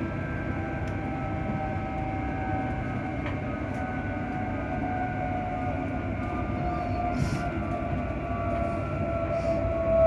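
Alstom electric train heard from inside the passenger saloon while running: a steady whine from its traction equipment and cooling fans over the low rumble of wheels on the track. The main whine sinks slightly in pitch toward the end, and a short hiss comes about seven seconds in.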